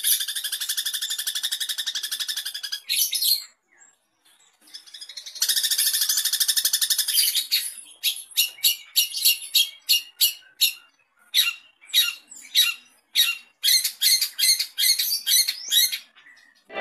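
Long-tailed shrike (cendet) song. A rapid, buzzing trill lasts about three seconds, followed by a short burst, a pause and another trill. Then comes a long run of separate sharp notes at about three a second.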